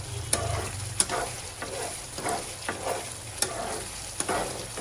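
Metal fork stirring and scraping minced mutton keema frying in oil in a nonstick pan, with a steady sizzle and several sharp clicks of the fork against the pan. The masala is being fried (bhuna) until the oil rises to the top.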